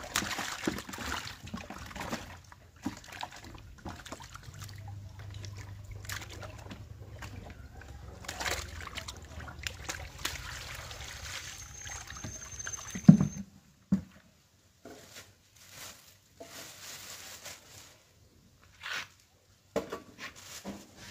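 Water sloshing and splashing as a plastic bucket of water and fish is tipped out into a plastic basin, with a loud knock about thirteen seconds in; after that only quieter, scattered handling sounds.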